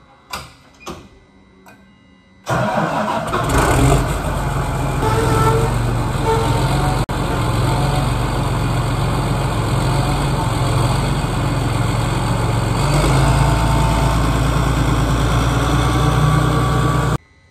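John Deere 8430 tractor's diesel engine starting up about two and a half seconds in, then running steadily as the tractor pulls slowly forward; the sound stops abruptly near the end.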